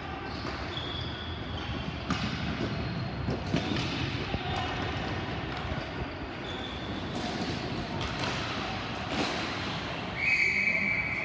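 Ball hockey play: scattered sharp knocks of sticks and the hard plastic ball on the sport-court floor and boards, with a referee's whistle blown about ten seconds in and held for over a second.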